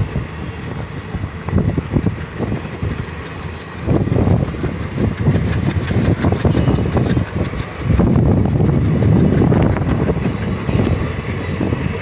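Indian Railways passenger coaches rolling past close by on a departing train, wheels clattering rhythmically over the rail joints, with louder swells about four seconds in and again near two-thirds of the way through.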